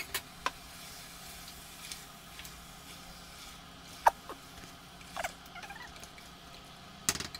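Wooden spatula stirring raw beef chunks into onion-tomato masala in an aluminium pressure cooker: a few short squeaks and scrapes of the wood against the pot, with light knocks, the loudest near the end.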